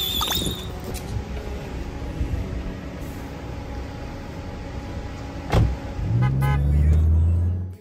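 A Toyota Hiace camper van on the move: steady low road and engine rumble, with a thump about five and a half seconds in and a steady low hum over the last two seconds.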